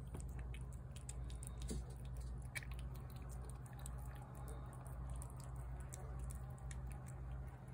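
Cat eating wet cat food from a plate close by, a run of irregular soft clicks and squishes of chewing and licking, over a steady low background rumble.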